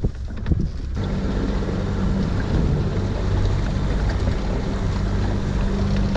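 A boat's outboard motor running steadily at cruising speed while under way, from about a second in, with water rushing past the hull and wind buffeting the microphone.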